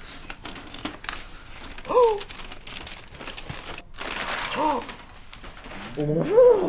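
A cardboard parcel being torn open and unwrapped: irregular rustling, crinkling and tearing of paper and cardboard packaging. Three brief vocal exclamations break in, the last near the end the loudest.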